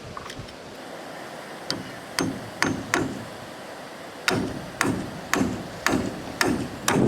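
A hammer striking wood, about two blows a second: a few strikes, a short pause, then a steady run of blows, typical of nailing boards in wooden house building.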